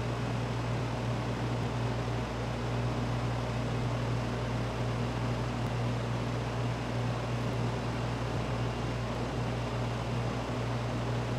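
Steady machine hum with an even rushing, fan-like noise, unchanging throughout.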